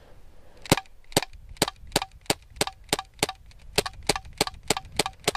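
CO2 BB pistol fired in rapid semi-automatic succession, about fourteen sharp cracks, two to three a second, each with a short metallic ring, emptying the magazine.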